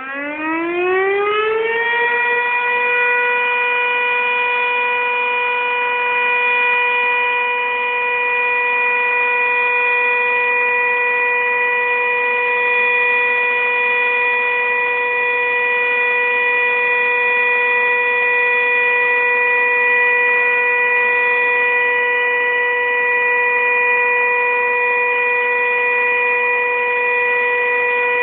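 Fire station siren sounding the call-out alarm for the volunteer fire brigade: it rises in pitch over about two seconds, holds one loud, steady wail, and begins to wind down right at the end.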